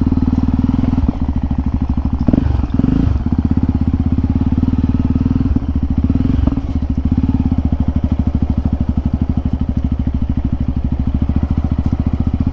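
Single-cylinder trail motorcycle engine running at a steady pace, its firing pulses even, with brief changes in note about two seconds in and again past the middle.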